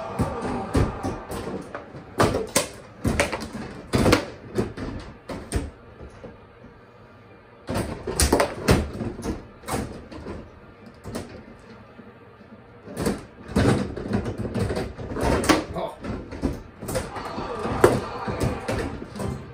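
Bubble hockey table in play: rapid, irregular clacks and knocks of the puck against the plastic players and boards and of the rods being worked, in flurries with a short lull about a third of the way in.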